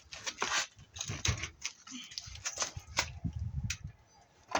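Irregular clicks, knocks and rattles of wires and dishwasher parts being handled and tugged while checking for connections.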